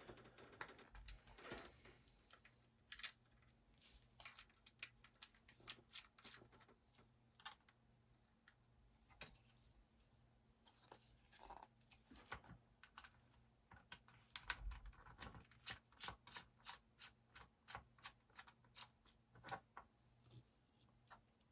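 Faint, irregular light clicks and ticks of a small screwdriver and tiny screws being handled on a laptop hard drive's mounting bracket, over a faint low hum.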